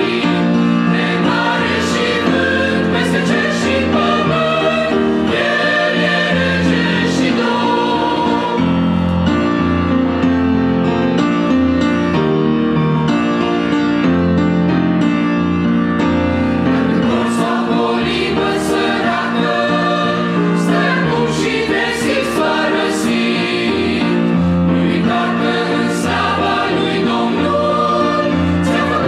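Mixed choir of men's and women's voices singing a Romanian Christian hymn in several-part harmony, without a break.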